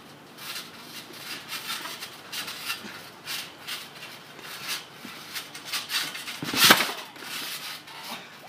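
A trampoline mat and its springs creaking, rubbing and knocking under people scuffling on it, with a heavy thump about six and a half seconds in.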